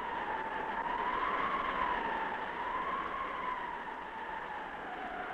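A wailing, siren-like tone that rises and falls slowly around one pitch over a steady hiss, starting abruptly.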